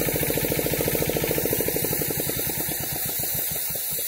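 Piston air compressor running with a fast, even chugging, then switching off about two seconds in and slowing to a stop over the next two seconds.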